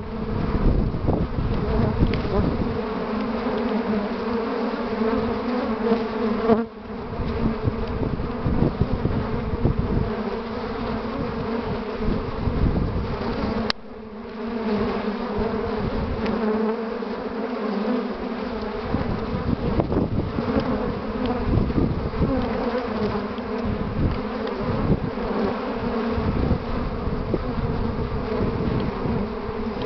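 Dense, steady buzzing of many honeybees at a hive entrance, foragers streaming in and out carrying willow pollen: the sound of a colony working hard on an early-spring pollen flow. The buzz briefly dips twice.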